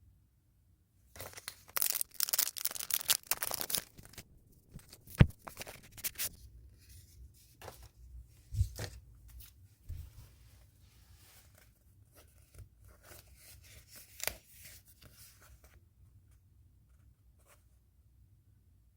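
Packaging being torn open by hand: a long ripping stretch starting about a second in and lasting a few seconds, then a sharp click and scattered rustling and handling sounds.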